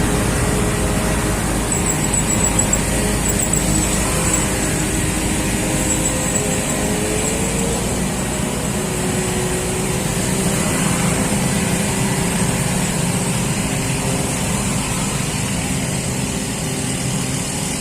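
Engine running steadily at a constant speed on a test run, with a low, even rumble throughout.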